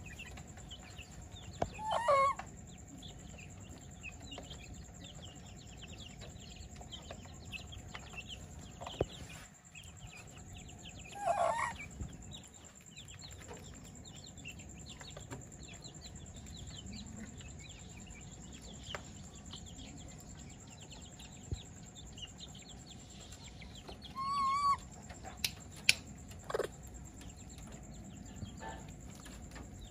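Three short pitched animal calls, one near the start, one about a third of the way in and one toward the end, the last wavering, over a steady low background with faint chirping; a few sharp clicks follow the last call.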